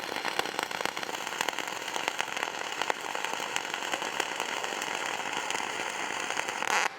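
Flux-cored welding arc running dual-shield wire with no shielding gas: a steady, dense crackle with many sharp pops of spatter, cutting off suddenly near the end as the trigger is released. It sounded like it ran a lot better than expected for wire meant to be run under argon/CO2.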